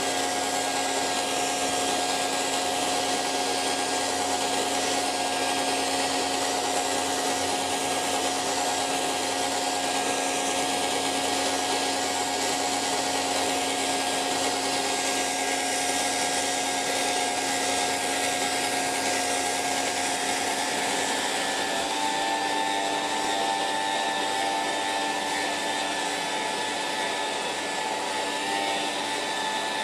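Hairdryer running steadily: an even blowing hiss with a constant motor hum, whose pitch shifts slightly about two-thirds of the way through.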